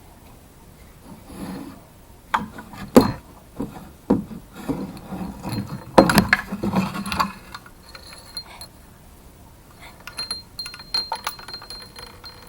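Irregular clicks and knocks of small hard objects, some with a glassy clink, loudest about three and six seconds in and fainter near the end.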